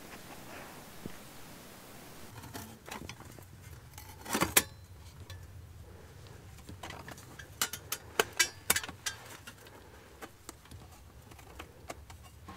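Light metal clinks and clacks as a thin steel plate is handled and fitted against a Folding Firebox stove, with one sharper clack about four and a half seconds in and a quick run of clicks around eight seconds.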